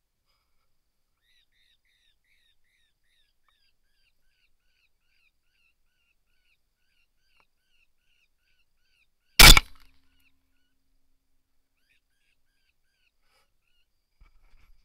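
A single rifle shot about nine seconds in, fired at a coyote. Before it comes a faint row of short, high chirping calls, a few each second.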